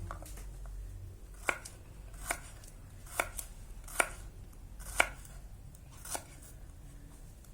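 Knife slicing shallots slowly and unevenly, about six sharp taps roughly a second apart as each cut comes down.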